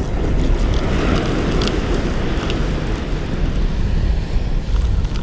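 Steady rumble of wind buffeting the microphone over waves washing on the beach, with a few faint scattered clicks.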